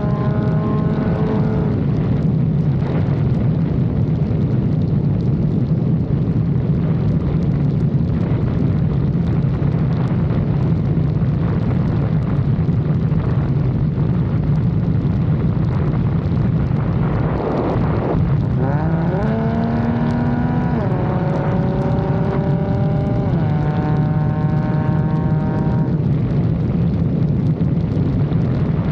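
Lexus IS 250's V6 engine and road noise while driving: a steady low drone, with the engine note climbing under acceleration about two-thirds of the way through, rising in steps.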